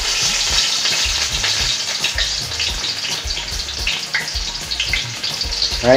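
Chopped onion frying in hot oil in an aluminium pot: a steady sizzling hiss with small crackles.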